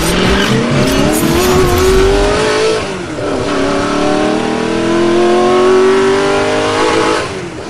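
A car engine accelerating hard, its pitch rising steadily, dropping briefly at a gear change about three seconds in, then rising again before fading away near the end.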